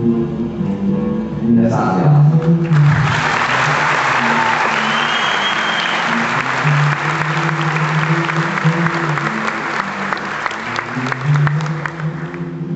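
Guitar playing, then an audience breaks into applause about three seconds in. The clapping goes on over the continuing guitar and fades out near the end.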